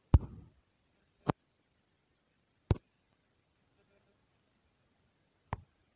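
Four short, sharp clicks spaced irregularly, the first the loudest with a brief low thud after it.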